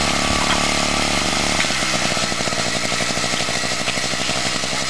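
The small air-cooled engine of a walk-behind two-wheel tractor runs steadily. About a second and a half in, its even hum turns into a rougher, pulsing beat.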